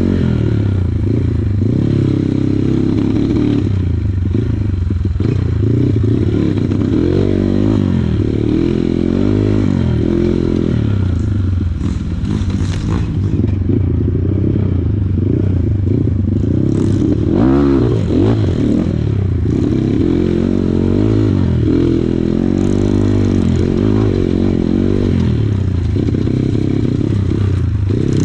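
Kawasaki KLX140 trail bike's single-cylinder four-stroke engine revving up and down again and again as it is ridden, with rattling and scraping knocks from the bike over rough ground.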